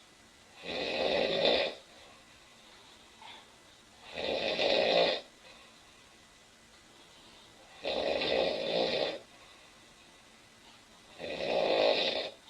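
A woman snoring loudly in her sleep: four snores, each about a second long, coming about every three and a half seconds.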